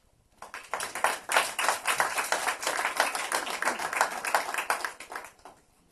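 Audience applauding: a dense patter of many hands clapping that starts about half a second in and dies away near the end.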